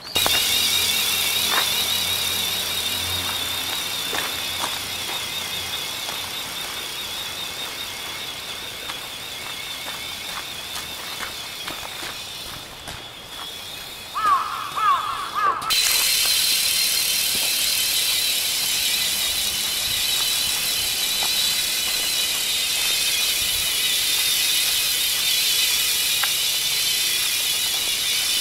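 A 16-winged RC ornithopter in flight: its electric drive gives a high whine that wobbles in pitch as the wings flap, over a hiss. About halfway through the whine fades out for a few seconds and a brief squeaky chirping is heard, then the whine and hiss come back abruptly.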